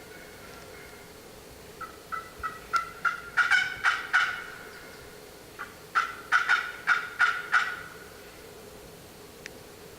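Two series of turkey yelps, each a run of about eight clear notes at roughly four a second that build in loudness; the second series starts about a second and a half after the first ends.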